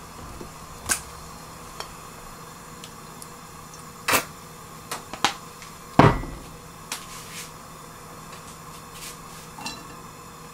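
Scattered kitchen knocks and clicks from a pot and utensils being handled on a glass cooktop, with one heavier knock and thud about six seconds in, over a steady faint hum.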